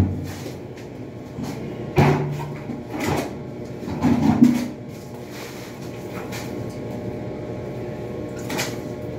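Tile-setting work: a few sharp knocks and scrapes of hand tools and tile, over a steady background noise.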